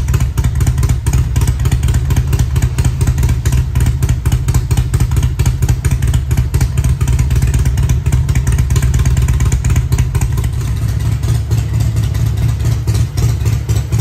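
2006 Harley-Davidson Electra Glide Classic's 95 ci Twin Cam V-twin idling loudly and steadily through Vance & Hines exhaust, a fast run of deep exhaust pulses.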